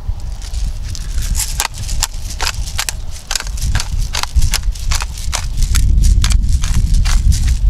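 Hand-twisted pepper mill grinding peppercorns: a quick, uneven run of sharp crunching clicks. Wind buffets the microphone underneath with a low rumble that grows louder near the end.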